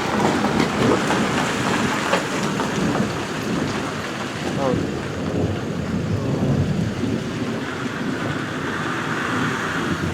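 Rain falling steadily during a thunderstorm, with drops landing as sharp ticks in the first few seconds, under a low rumble of thunder that swells and fades.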